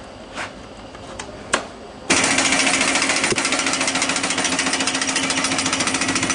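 A few light knocks as the roll is handled, then about two seconds in the ESCA 936 roll-cutting machine for glass-fibre mat is switched on and runs loudly with a fast, even rattle over a steady hum.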